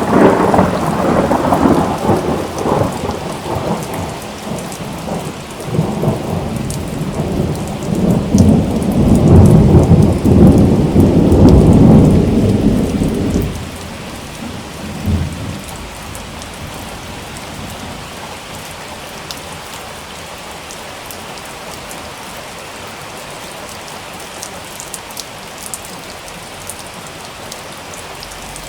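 Thunderstorm: rain falling steadily under rolling thunder. A long rumble at the start fades, swells again to its loudest around the middle, and dies away about halfway through, with one short rumble after it, leaving only the rain.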